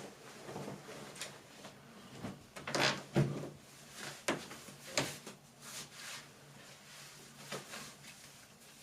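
Irregular handling sounds from someone undressing: fabric rustling with several sharp clicks and knocks, the loudest burst about three seconds in. A faint steady hum sits underneath.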